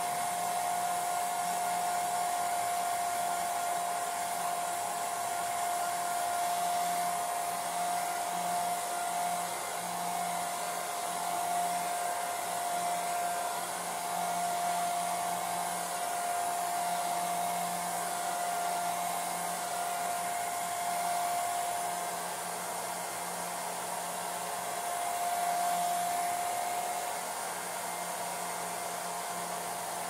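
Handheld hair dryer running steadily: a continuous blowing hiss with a steady motor whine, its level wavering slightly as the dryer is moved about.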